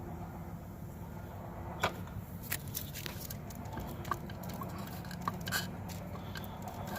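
A few short, light clicks and taps of distributor parts being handled, over a steady low background hum.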